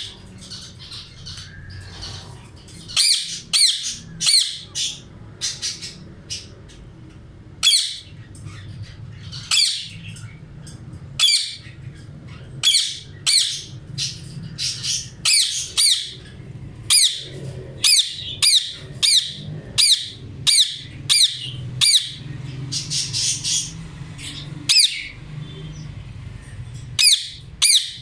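Indian ringneck parakeets squawking: harsh, high-pitched calls in quick runs of several at a time, repeated again and again with short pauses between the runs.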